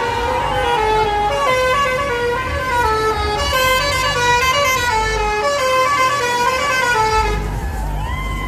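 A musical vehicle horn playing a tune, its notes stepping up and down several times a second.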